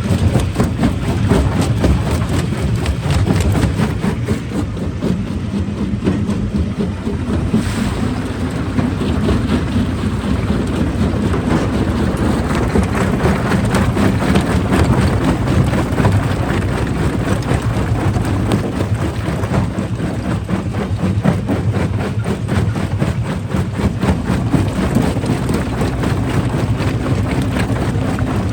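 Heavy rock-crushing machinery running steadily: a deep, continuous engine drone with dense rattling and clattering throughout.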